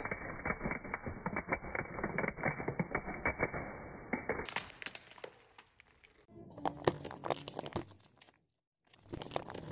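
Objects crackling and crunching as they are crushed, dense snapping clicks in a few short bursts with brief gaps between them.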